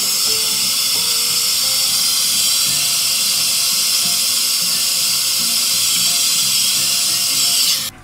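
ReFa hair dryer blowing air steadily with a loud high hiss while drying hair at the roots, switched off abruptly near the end. Soft background music plays underneath.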